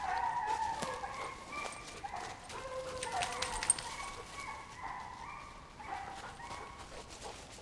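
Deer-drive hounds baying: several drawn-out, overlapping bawls at different pitches.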